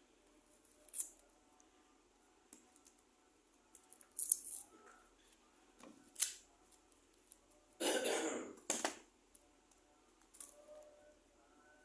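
Paper being handled in short crisp rustles and snips, a few seconds apart. Around the middle, a person coughs in the background: one longer cough and a short second one.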